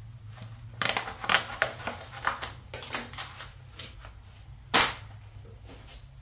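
Paper rustling and knocks as a notebook and a sheet of gasket material are handled and set down on a workbench, a run of clicks and taps, then one sharp slap about five seconds in, the loudest sound. A steady low hum runs underneath.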